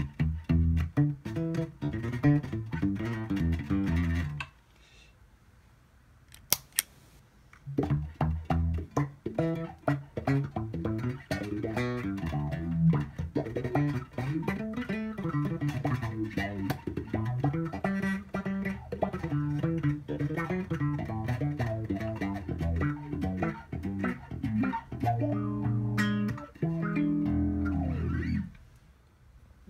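Electric bass played clean for about four seconds, then a short pause with a couple of sharp clicks as the pedal's footswitch is pressed, then bass lines played through an MXR Bass Envelope Filter, its auto-wah sweeping the tone of each note up and down.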